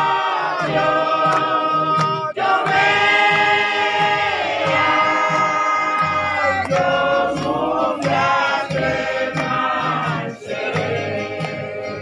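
A group of voices singing a slow song together in long held phrases, over a low, steady rhythmic accompaniment.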